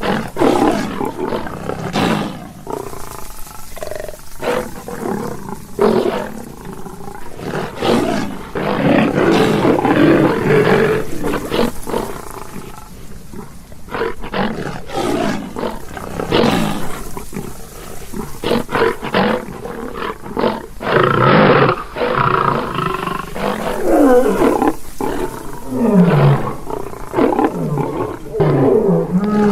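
Lion roaring and growling, one rough call after another with no real pause, swelling and fading in loudness.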